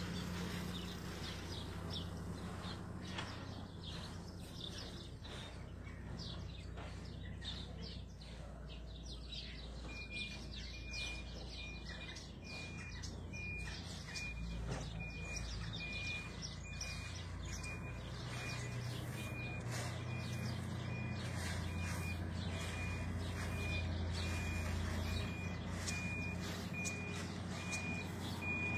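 Small birds chirping over a steady low engine rumble. From about a third of the way in, a high single-pitched beep repeats at even spacing, a vehicle's reversing alarm.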